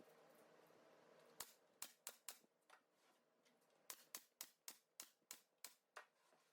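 A run of faint, sharp clicks: a few at uneven intervals, then about eight at an even pace of roughly four a second.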